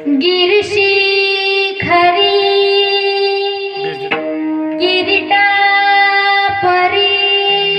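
Music: a female voice singing long held notes without words over melodic accompaniment, the opening of a Marathi song.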